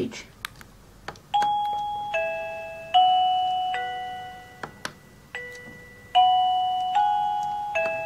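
Tecknet WA638 plug-in wireless doorbell receiver playing electronic chime tones as its music-select button is pressed again and again, each press giving a small click and starting the next chime. The ringing notes begin about a second in, and each new chime starts sharply and fades slowly.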